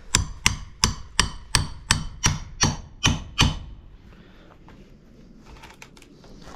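Hammer strikes, about a dozen in quick succession at roughly three a second, stopping about three and a half seconds in.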